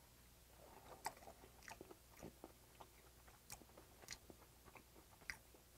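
A person quietly chewing a mouthful of spicy marinated cockles: faint, wet mouth sounds with scattered small clicks at irregular intervals.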